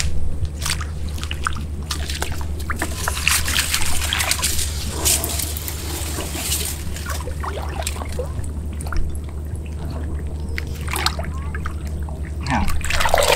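Water splashing and trickling in shallow floodwater, in irregular bursts with heavier splashing at times, over a steady low hum.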